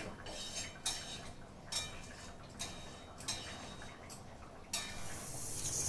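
A metal spoon clinking lightly against a cooking pot, a few separate clicks roughly a second apart.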